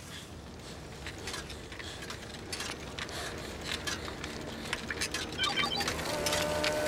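A cartoon bicycle rattling and clicking as it is ridden: rapid irregular clicks over a low rumble. Music begins rising in about six seconds in.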